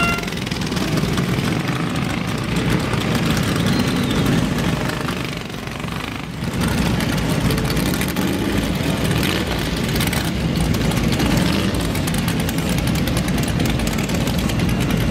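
Engines of slow-moving parade vehicles running steadily: hot rods rolling past at idle, then several small children's dirt bikes going by.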